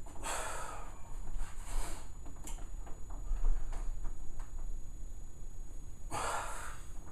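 A man breathing out hard while flexing through bodybuilding poses: three hissing breaths, one just at the start, one near two seconds in and one about six seconds in.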